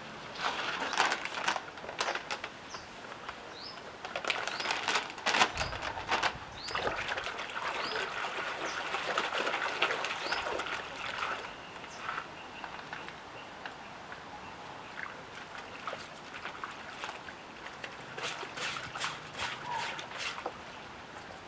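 Clothes being hand-washed in a plastic tub of water: water sloshing and trickling as the cloth is worked, with scattered knocks and a dull thump about five seconds in.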